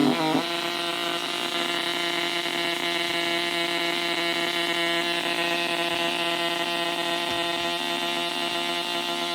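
Atari Punkr synth kit, an Atari Punk Console noise maker, putting out a buzzy electronic drone with many overtones; its pitch shifts just after the start, then holds steady.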